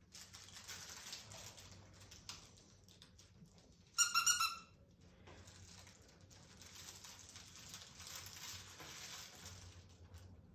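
Rustling and scratching of a puppy scrambling about on a plastic tarp and play mat, with one short, high squeak about four seconds in, the loudest sound.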